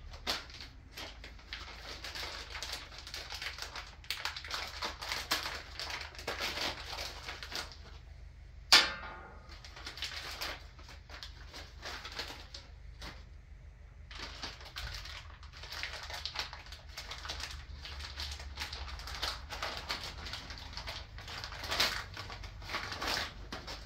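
Plastic packaging crinkling and rustling as it is handled and unwrapped, with many small clicks. About nine seconds in comes one sharp, ringing hit, the loudest sound.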